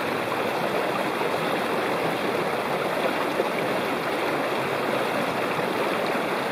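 Small hill stream running and splashing over stones close to the microphone: a steady rush of water.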